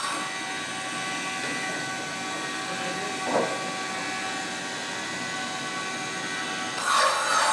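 Steady drone of woodworking machinery and dust extraction running, with a brief swell about three seconds in. Near the end a radial arm saw starts cutting into a wooden slab, much louder.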